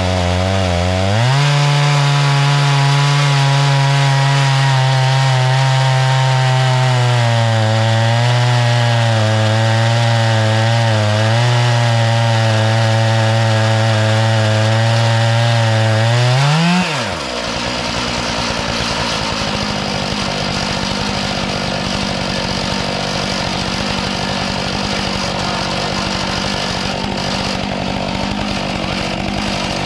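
Stihl 661 two-stroke chainsaw on an Alaskan chainsaw mill running under load, its pitch held down as the long bar cuts through white oak, with a dip just after the start. About 17 seconds in the engine pitch climbs sharply and it keeps running higher and a little quieter.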